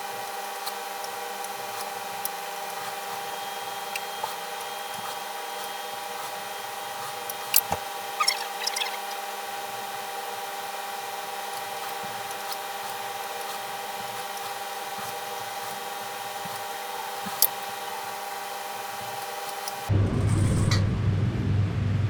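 A steady hum made of several fixed tones with one prominent high tone, broken by a few light clicks. Near the end it cuts abruptly to a louder, lower rumble.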